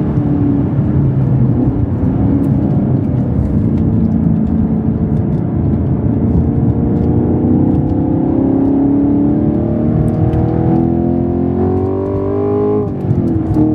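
The 2023 Camaro SS 1LE's naturally aspirated 6.2-litre V8 at speed on track, heard from inside the cabin. The engine note falls as the car slows for a corner, then climbs steadily under full throttle out of it, and about a second before the end it drops sharply with an upshift of the six-speed manual before pulling again.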